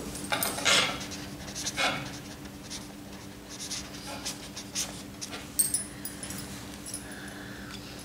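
Pen scratching on paper in short, irregular strokes as a signature is written, over a faint steady low hum.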